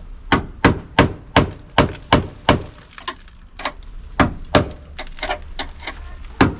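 Hammer striking a screwdriver used as a chisel to prise apart a spot-welded sheet-steel panel on a Mk2 Ford Fiesta's inner wing. A quick run of sharp metallic strikes, about three a second, a short pause about halfway, then more uneven strikes.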